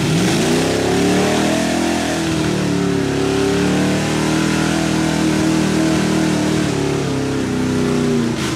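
Lifted Chevy pickup on 54-inch TSL Super Swamper Bogger tyres, its engine revved hard and held at high revs while the tyres spin in a mud hole. The pitch climbs sharply at the start, stays high with small wavers, and drops off near the end.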